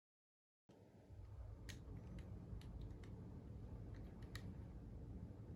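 Faint, scattered clicks, about six of them, over a low steady hum, starting after a brief moment of dead silence: small handling noises of a hand-held toy.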